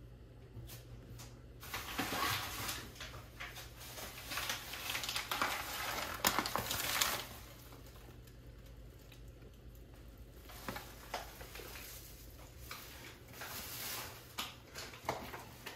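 Rustling and light clattering of kitchen handling at the stove, loudest from about two to seven seconds in, then a few scattered soft clicks and knocks.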